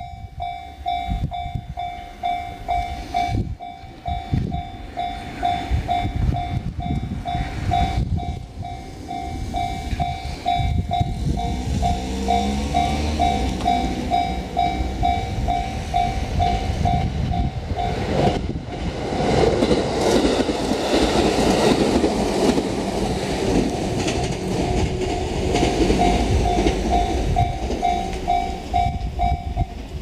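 Japanese level-crossing alarm ringing its electronic bell about twice a second while an electric train approaches and passes. The train's wheels and running noise build up about eighteen seconds in and cover the bell, which is heard clearly again near the end.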